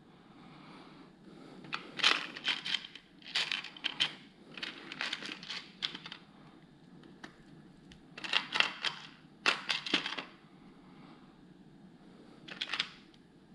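Plastic LEGO Technic parts being handled and sifted, in about six short bursts of crinkly rustling and clicking.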